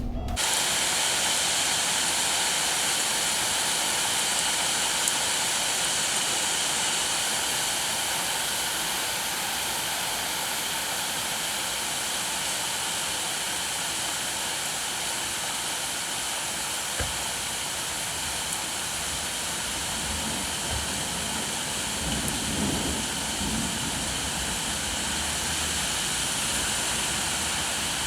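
Steady rain falling, an even hiss that starts abruptly as the music cuts out, with a few soft low rumbles about three-quarters of the way through.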